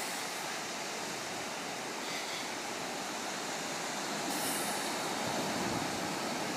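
Steady rushing of ocean surf, growing a little louder in the second half.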